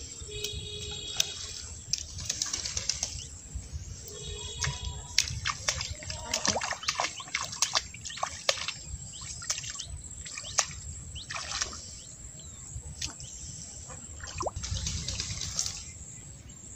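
Bare feet squelching in wet mud and brushing through wet grass and weeds, with many scattered clicks and rustles over a low rumble. A short pitched call is heard twice, about four seconds apart.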